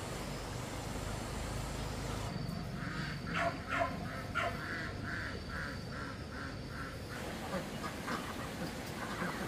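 A duck quacking in a quick run of short calls, about three a second, starting a couple of seconds in and stopping near seven seconds; a low steady rumble underlies the opening seconds.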